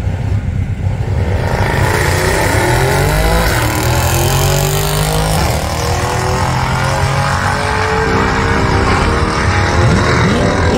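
A drag car launching off the start line and accelerating hard down the strip. The engine note climbs and drops back at each upshift, several times over the run.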